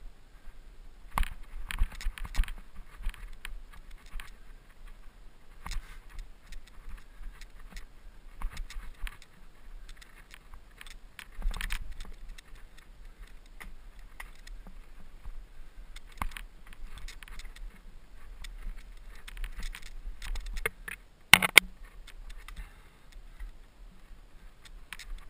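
Mountain bike rattling and clattering over a rough trail, with irregular clicks from the chain and frame and a low rumble of wind on the microphone; one sharp, loud knock about 21 seconds in.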